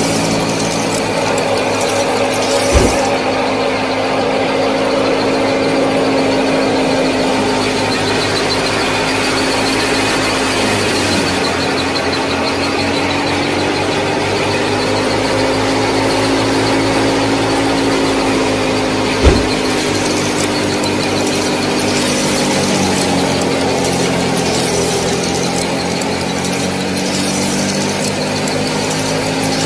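Small motor-driven model thresher and mini tractor running steadily with a hum of several tones, the pitch sagging and recovering twice. Two sharp knocks stand out, one near the start and one about two-thirds of the way through.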